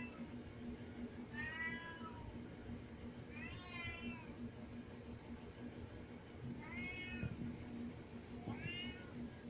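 Siamese cat meowing loudly and insistently: four drawn-out meows a couple of seconds apart, each rising and then falling in pitch, as it yells to be let upstairs.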